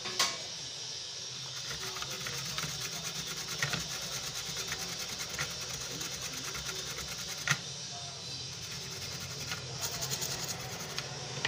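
Brush scrubbing the solder joints on a satellite receiver's circuit board: a fast, dry scratching, with a sharp click near the start and another about halfway through, over a steady low hum.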